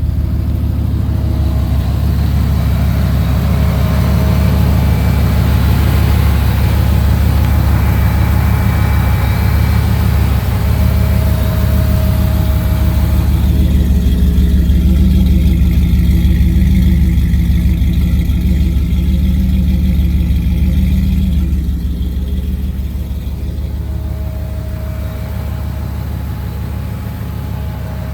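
Car engine idling steadily with a low, even rumble, its idle newly adjusted and a vacuum leak fixed. About three-quarters of the way through, the sound gets slightly quieter.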